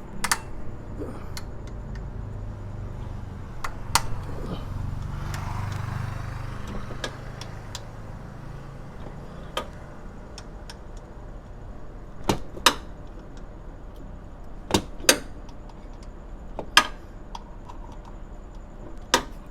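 Sharp, scattered metal clinks and taps of hand tools on bolts as a car's air-conditioning compressor is unbolted, with a low hum underneath that swells for a few seconds near the start.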